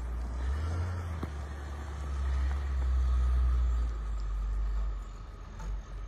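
Snow loader's engine running with a low, steady rumble and a faint steady whine above it. The rumble swells around the middle and eases off near the end.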